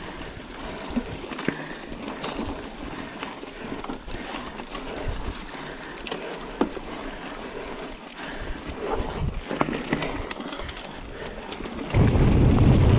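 Mountain bike rolling over a rough trail: a steady crackle of tyres on stones and dirt, with scattered knocks and rattles from the bike. About twelve seconds in, a loud low rumble of wind on the microphone comes in suddenly.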